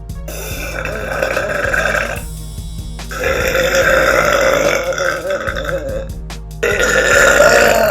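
A girl burping: three long, drawn-out burps in a row, each lasting two to three seconds, with short pauses between them.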